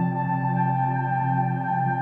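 Background music: soft sustained organ-like keyboard chords, held steady with a small change near the middle.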